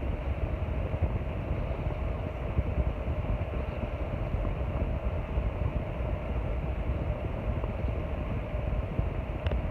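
Arno Ultra Silence Force electric fan running steadily, a constant rush of air with a deep rumbling undertone.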